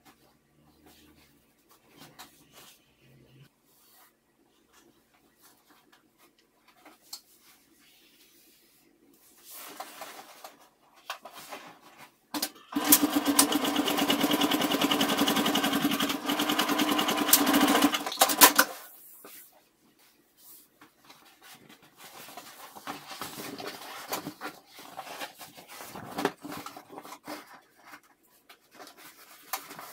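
Electric sewing machine stitching a straight seam at a steady fast speed for about six seconds in the middle, then stopping abruptly. Before and after it, soft rustling of stiff fabric as hands smooth and fold it flat.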